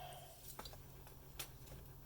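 Very quiet, with a few faint clicks over a low background hum.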